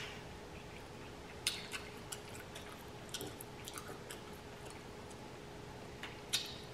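Hands working through a saucy seafood boil in a glass bowl: soft wet squishes and a scatter of sharp clicks, the loudest about a second and a half in and again near the end.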